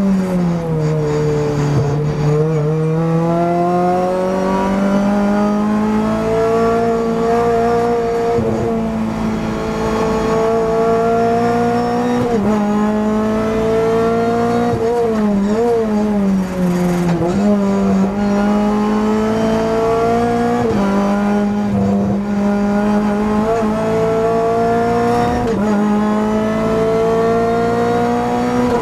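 Renault Clio Cup race car engine heard from inside the cabin, under racing load. Its note falls as the car brakes at the start, then climbs steadily as it accelerates out of the corner. It dips briefly a few times around the middle, then holds a high, fairly steady note.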